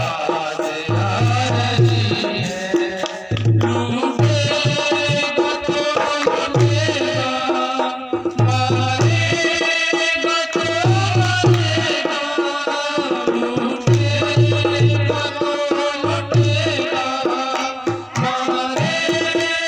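Instrumental passage of a Hindi Christian devotional song: a melody line over a steady hand-drum rhythm with deep regular strokes.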